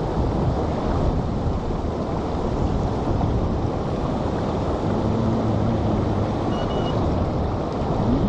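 Steady rushing of fast-flowing river water, with wind buffeting the microphone.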